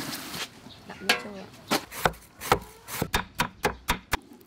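Knife cutting carrots on a wooden chopping board: a run of sharp cutting strokes that come faster toward the end, several a second.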